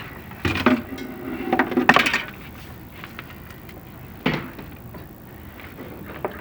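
A few knocks and scraping clatters, the loudest run about two seconds in and another single knock a little past four seconds, over a steady low background hum.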